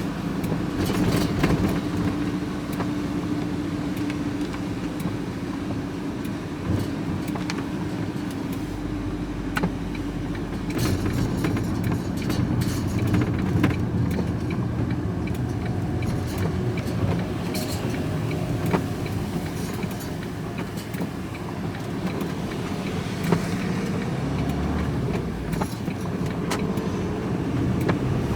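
A vehicle driving along a road, heard from inside the cabin: a steady engine and road rumble, with scattered small rattles and clinks throughout.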